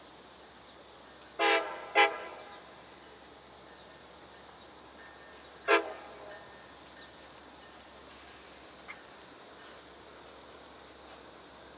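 GO Transit MP40PH-3C locomotive's air horn sounding three short blasts as the train approaches: two close together about a second and a half in, and a third near six seconds.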